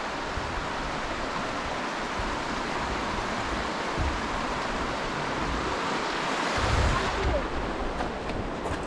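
Creek water rushing steadily, with wind buffeting the microphone now and then.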